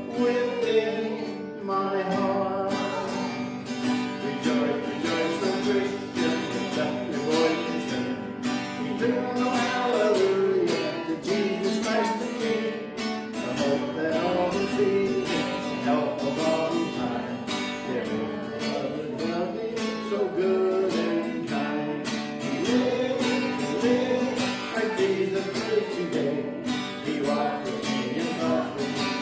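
Live worship music played with a steady beat, a melody line winding over sustained chords.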